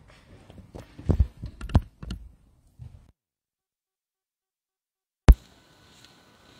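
A few dull thumps and knocks, most of them in the first two seconds: people stepping away from a wooden lectern and handling things close to the microphone. The sound then cuts out completely for about two seconds and comes back with one sharp click, followed by faint room tone.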